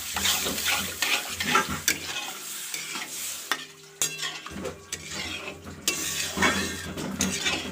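Long steel ladle stirring thin, watery pea dal in an aluminium kadai, scraping and clicking against the pan over a steady sizzle from the hot pan.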